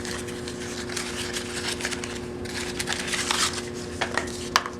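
Light handling noise: scattered small clicks and rustles as a boxed roll of film is turned over in the hands, over a steady low hum.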